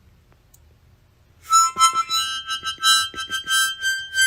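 Music: after a quiet first second and a half, a quick melody of short pitched notes starts and runs on.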